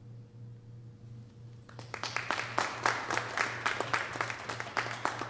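After a quiet pause, a small audience starts applauding about two seconds in, with a dense patter of hand claps.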